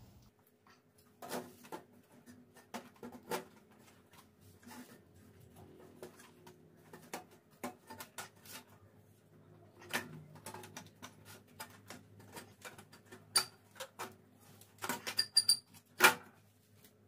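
Quiet scattered clicks and knocks of a metal frame being handled and seated into an amplifier's open steel chassis, with a denser run of sharper knocks near the end.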